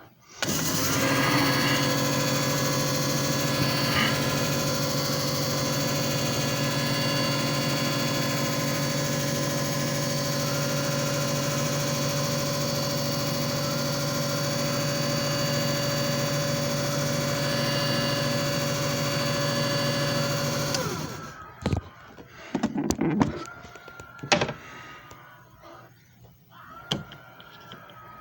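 JFJ Easy Pro disc repair machine running a cycle: a steady motor hum and whine with a hiss, for about twenty seconds, then winding down and stopping. A few knocks and clicks follow near the end.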